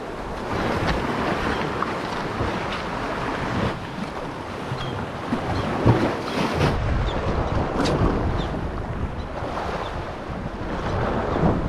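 Sea water sloshing and lapping around a person wading chest-deep, with wind buffeting the microphone; the low wind rumble grows stronger about two-thirds of the way through.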